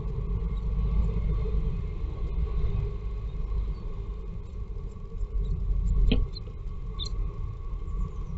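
Steady low rumble with a faint constant hum, picked up by a nest-box camera's microphone, with one short sharp sound about six seconds in and a faint high chirp about a second later.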